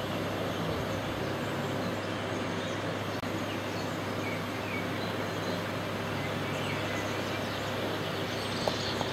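Steady outdoor background noise, with a few faint bird chirps and a small click near the end.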